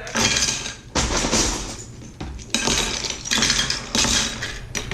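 Loose plastic Lego bricks clattering and rattling against each other as they are handled in handfuls, in several bursts of about a second each.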